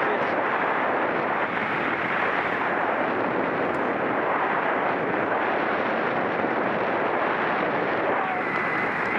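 Steady rushing wind noise on the microphone of a camera moving at racing speed in a bicycle criterium, with a brief faint high tone near the end.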